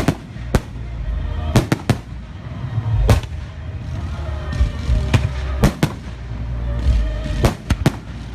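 Fireworks display: about a dozen sharp bangs of shells bursting at irregular intervals, some in quick clusters, over a continuous low rumble, with music playing underneath.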